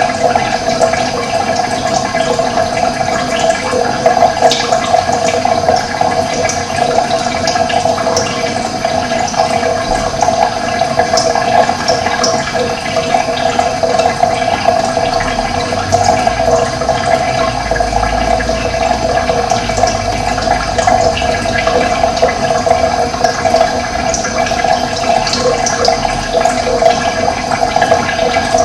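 Running water, a steady, continuous rush like a stream or small cascade.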